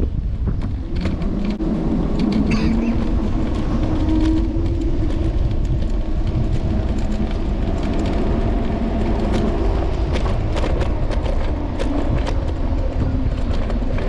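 Steady low rumble of wind and road noise from riding an electric scooter, with many small clicks and knocks from bumps in the street and a low hum that rises and falls in pitch.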